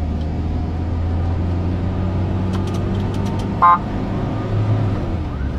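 Car engine running steadily, heard from inside the moving vehicle, with one short horn toot about two-thirds of the way through.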